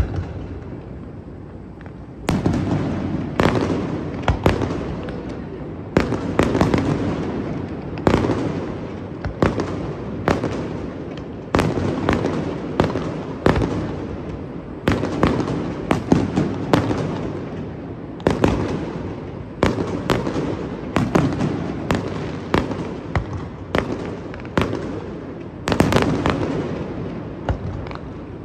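Fireworks shells bursting in a steady string, sharp bangs about every second, each trailing off in a rolling echo. The bangs start about two seconds in, after a quieter moment.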